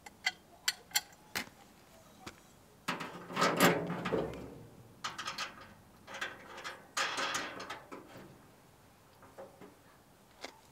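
Metal parts of a Recteq Flagship 1100 pellet grill clinking and scraping as a part is fitted to the steel barrel during assembly. A few light clicks in the first second and a half, then several rattling, scraping bursts, the loudest about three to four seconds in.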